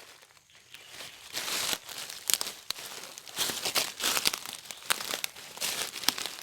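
Footsteps pushing through dry leaf litter and undergrowth, leaves and twigs rustling and crackling in uneven bursts.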